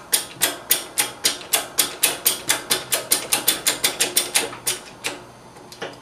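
Hand-pumped hydraulic shop press driving its ram down to press a rear sight block onto an RPK barrel: a fast run of sharp clicks from the pump strokes, about four to five a second, stopping near the end with a few spaced clicks after.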